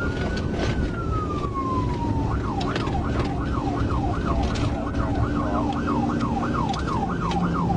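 Police car siren, starting as a slow wail and switching about two seconds in to a fast yelp of roughly two rises and falls a second. Under it is the steady rumble of the patrol car's engine and tyres at about 70–77 mph.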